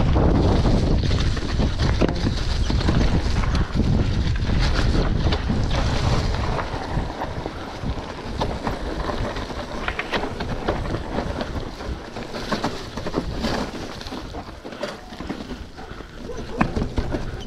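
Downhill mountain bike descent heard from a GoPro: wind on the microphone with tyres running over the dirt trail and sharp rattles and knocks from the bike on rough ground. The wind rumble is heaviest for about the first six seconds, then drops, leaving the clatter of the bike more to the fore.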